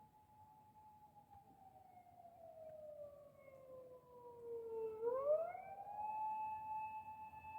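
Emergency vehicle's wail siren, growing louder as it approaches. Its held tone slides slowly down for about four seconds, then sweeps back up about five seconds in and holds.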